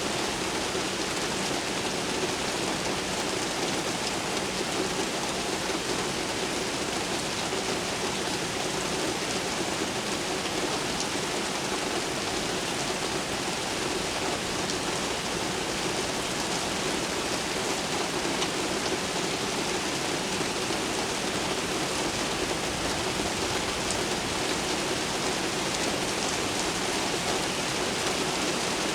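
Steady rain falling on a city, an even hiss of rain with no thunder.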